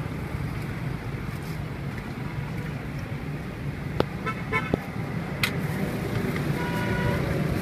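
Steady street traffic rumble from passing motor vehicles. A vehicle horn gives a quick run of short beeps about four seconds in and a steadier toot near the end, with a few sharp clicks around the middle.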